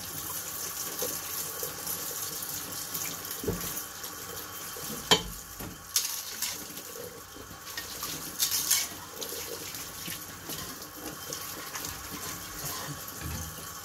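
Kitchen tap running into a sink as dishes are washed by hand, with a few knocks and clinks of dishes.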